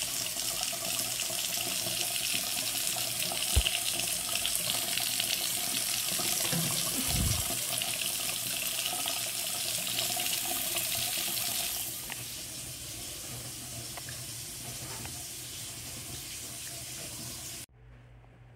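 Water running from a newly installed single-handle bathroom faucet in a steady, unrestricted stream into a ceramic sink, while the installation is checked for leaks. There is a single knock a few seconds in; the sound gets quieter about twelve seconds in and cuts off suddenly near the end.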